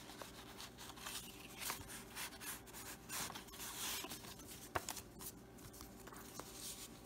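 Paper rustling and sliding as a vintage postcard and a tag are handled and tucked into a paper envelope, then a journal page is turned near the end. One sharp tick about two thirds of the way through.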